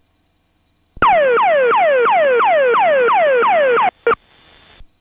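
Emergency locator transmitter (ELT) distress signal received over the aircraft radio on the 121.5 MHz emergency frequency: a loud, siren-like tone sweeping downward about three times a second, starting about a second in and cutting off after about three seconds. A short blip and brief radio hiss follow.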